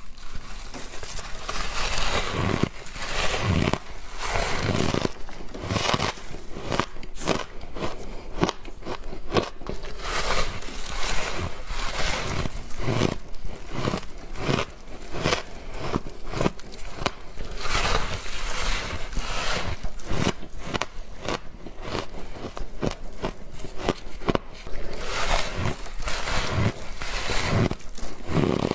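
Mouthfuls of refrozen shaved ice being bitten off a block and chewed: a dense, continuous run of crisp icy crunches, several a second.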